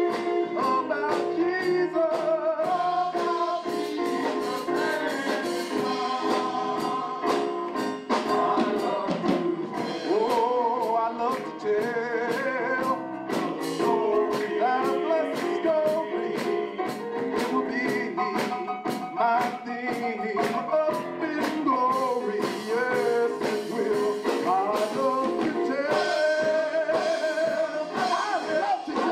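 Male gospel vocal group singing, backed by a live band with a drum kit keeping a steady beat.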